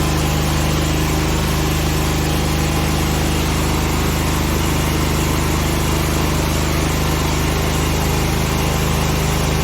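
Vermogen VG-CMGE 11000 11 kW gasoline generator engine running steadily at an even pitch, with a continuous hiss over the engine note.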